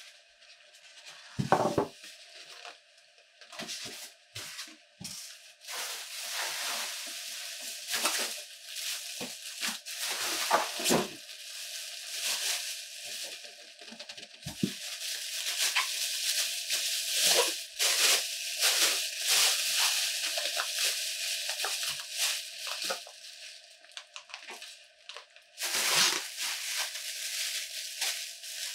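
Irregular bouts of rustling and crackling handling noise, with a few sharp knocks, the loudest about a second and a half in and another near the end.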